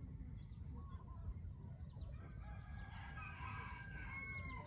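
A rooster crowing once: a long call starting about two seconds in, over a steady low rumble.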